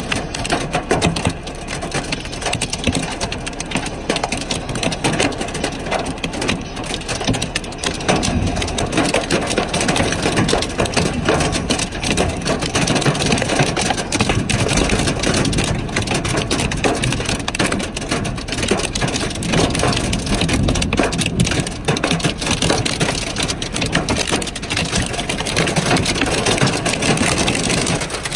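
Hail and heavy rain pelting the pavement and the car, a dense, steady clatter of hailstone hits over the hiss of rain, heard through a partly open car window. It grows a little louder about eight seconds in.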